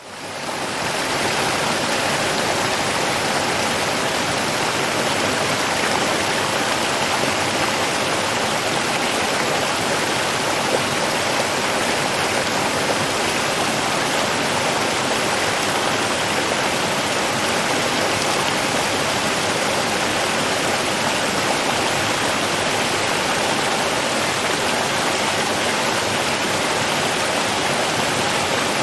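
Steady, unbroken rush of running water, fading in over the first second.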